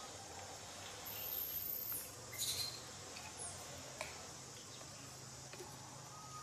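Quiet outdoor background with a faint, thin, high-pitched whine lasting about a second. It is followed by a brief scratchy rustle and a single sharp click about four seconds in.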